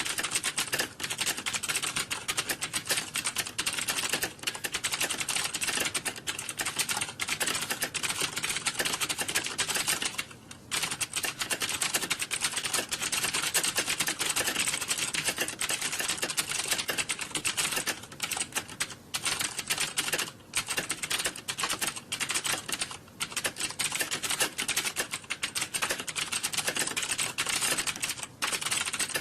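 Fast, continuous typing on a computer keyboard, a rapid stream of key clicks with a few short pauses, the longest about ten seconds in.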